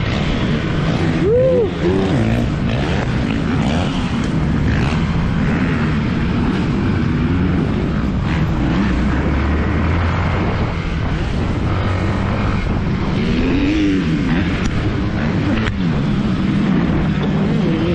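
Yamaha WR155R's single-cylinder four-stroke engine being ridden hard, revving up and down through the gears. It has quick rises and falls in pitch about a second and a half in and again near the end.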